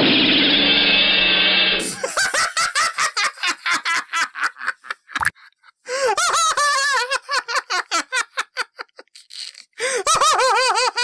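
A loud, noisy sound effect for about two seconds, then cartoon laughter from a voice actor. The laughter comes in rapid bursts of several a second, breaks off, and returns twice with wavering pitch.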